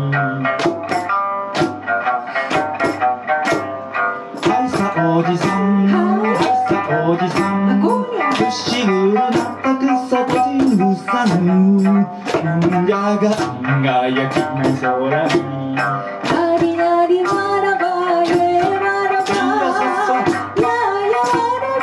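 Okinawan sanshin plucked in a lively folk tune, with a small hand-held frame drum beating a steady rhythm and a voice singing along.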